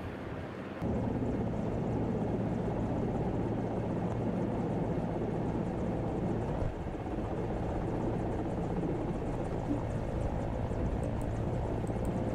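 Helicopter rotor and engine noise: a loud, steady drone with a low hum underneath. It starts suddenly about a second in and dips briefly just past the middle.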